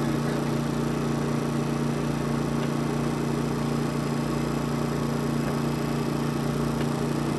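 Steady low mechanical hum of a running machine, even in level with no change.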